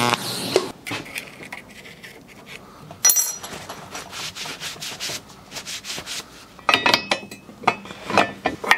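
Steel crankshaft and metal parts handled on a workbench: small clicks and knocks, a sharp ringing metal clink about three seconds in, then a run of metal clinks and knocks near the end as the crankshaft is set into a metal truing stand.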